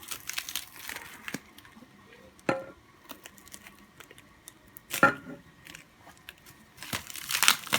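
Handling noise from unboxing a metal bow riser: light clicks, two sharper knocks with a brief metallic ring about two and a half and five seconds in, and packaging crinkling near the end.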